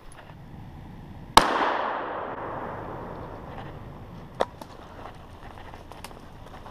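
A single .410 shotgun shot, its echo dying away over the next second or so, then a sharp click about three seconds later.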